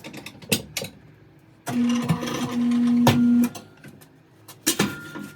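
Tire changer's electric turntable motor running: a steady hum for about two seconds near the middle, with sharp metal clicks and knocks from the machine and tools before and after.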